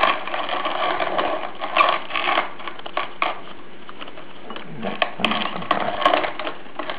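Hand-cranked wooden coffee grinder with a brass hopper grinding coffee beans: a steady crunching rattle from the mill as the crank is turned, with scattered clicks.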